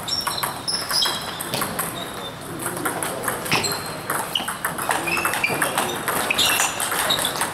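Table tennis rally: the plastic ball clicking off rackets and the table in quick, irregular knocks, with short pings ringing after some hits.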